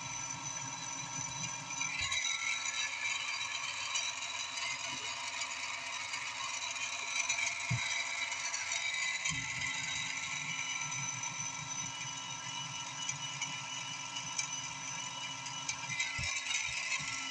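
A machine running steadily with a high whine made of several steady tones, over a low rattle, with a few brief knocks.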